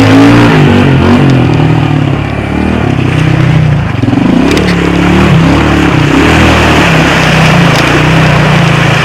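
Quad (ATV) engine running loud under the rider, its pitch going up and down repeatedly as the throttle is worked over rough ground, with scattered knocks and rattles.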